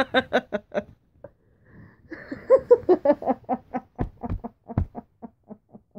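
Hearty laughter in two bouts of rapid ha-ha pulses: the first trails off about a second in, the second starts about two seconds in and fades away near the end.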